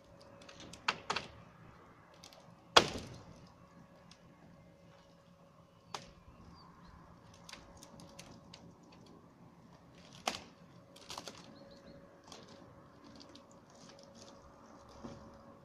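Irregular knocks, clicks and cracks from polycarbonate roofing sheets being handled and pulled apart on a damaged canopy. The sharpest knock comes about three seconds in, with lighter ticks and clatter scattered through the rest.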